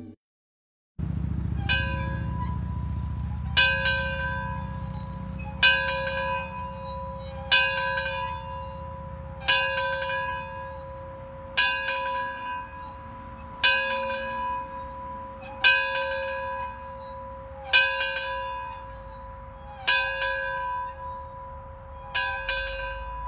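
A church bell in a small rooftop cupola belfry tolling, about eleven strikes roughly two seconds apart beginning a second or so in, each strike ringing on into the next. A steady low rumble lies beneath the tolls.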